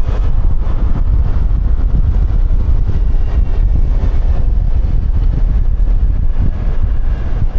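Wind buffeting and rumbling on a helmet-mounted external microphone while riding a QJMotor Fortress 160 scooter at speed, with the scooter's engine and road noise underneath.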